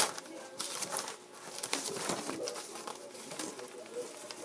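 A sheet of paper rustling and crinkling as it is handled and folded by hand, in short scrapes and crackles, the loudest right at the start.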